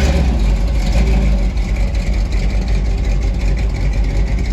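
BMW M3's S54 3.2-litre inline-six running steadily with no exhaust fitted, a loud, near open-header rumble.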